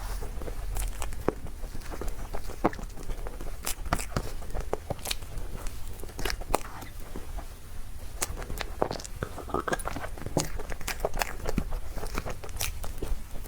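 Close-miked eating: bites and chewing, with many sharp wet mouth clicks at irregular intervals.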